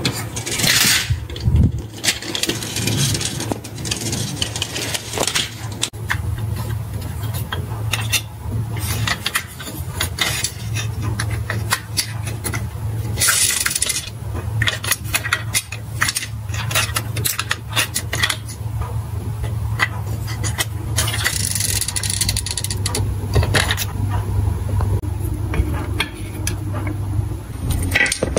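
Glass marbles clattering and clicking against each other and against the toy truck's plastic bed and wooden track pieces, with several louder rattling surges, over a steady low hum.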